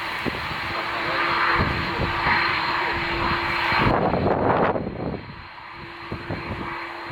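Boeing 747-400F freighter's jet engines running, a steady broad rush with a held low hum. It swells to its loudest about four seconds in, then drops off sharply.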